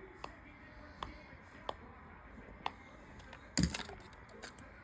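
Sharp plastic clicks and taps as a toy walkie-talkie is handled, four single clicks spread out, then a louder clatter about three and a half seconds in.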